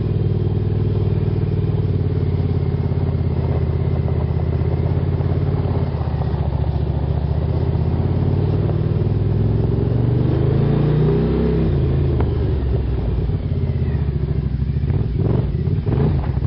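Suzuki SV1000 V-twin engine of a minibuggy running under way. It revs up about ten seconds in and drops back a second or two later. A few knocks and rattles come near the end.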